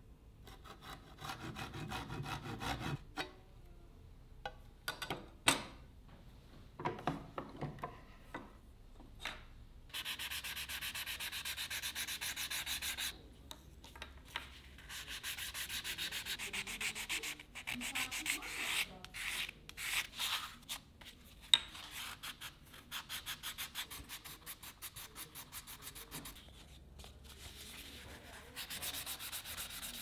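A fine-toothed hand saw cutting into a small wooden piece for the first few seconds, followed by scattered knocks of handling. After that, sandpaper is rubbed by hand on a small wooden knife handle: a steady hiss of rubbing that breaks into quick back-and-forth strokes with short pauses.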